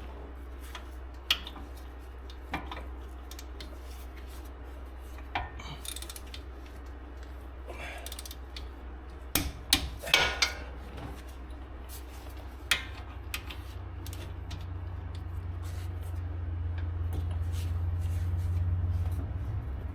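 Hand tools working on a wheel hub: scattered metallic clicks, clinks and knocks, with a quick cluster of sharp clicks about halfway through, likely the torque wrench and socket on the hub bolts. A low steady hum underneath grows louder in the second half.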